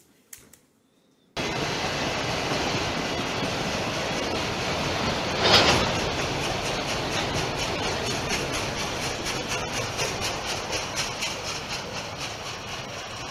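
Freight train of autorack cars rolling past, a steady rumble of wheels on rail that starts abruptly a second or so in, with a brief louder swell about four seconds later and rhythmic clickety-clack of wheels over rail joints in the second half.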